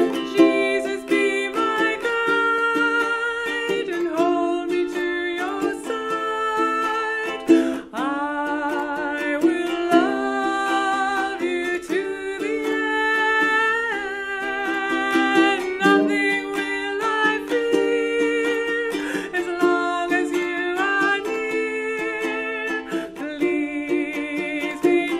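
A woman singing a slow devotional song to her own ukulele accompaniment.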